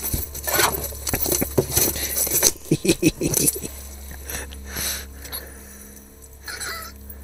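Irregular taps, slaps and scrapes of a freshly landed whitefish being lifted from the ice hole and handled, busiest in the first three seconds or so, then fading to light scuffling.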